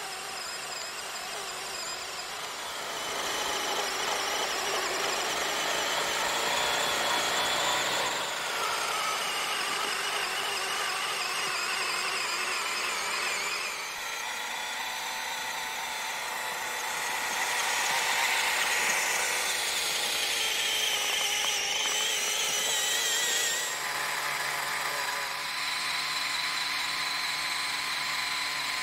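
Electric motors and plastic gearing of a large Lego Technic RC snow blower whining as it drives and spins its blower through snow, the pitch wavering with the load. The motors are straining in the cold. The whine rises and grows louder for a few seconds in the second half.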